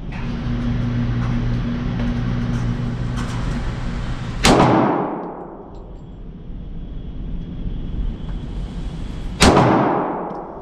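Two semi-automatic pistol shots about five seconds apart, each a sharp crack followed by a short echoing tail in an indoor firing range.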